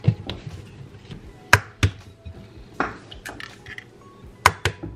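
Eggs being tapped to crack them open over a glass mixing bowl: a few sharp taps, two close together about a second and a half in, one near three seconds, and two more near the end.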